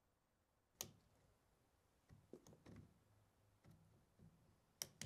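Faint clicking and handling noises as a spring hose clamp is worked with pliers and a rubber drain hose is fitted onto the washer drain pump. There is a sharp click about a second in, another near the end, and light rubbing and small clicks in between.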